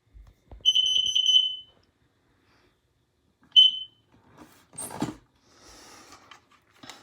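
Combination smoke and carbon monoxide alarm sounding a shrill piezo beep for about a second, then one short beep a couple of seconds later. Near the end comes a thump and some rustling.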